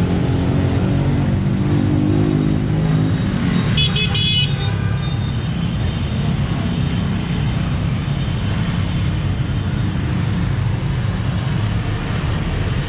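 Street traffic of motorbikes and cars running past, with a steady low rumble and an engine droning past in the first few seconds. A short horn toot sounds about four seconds in.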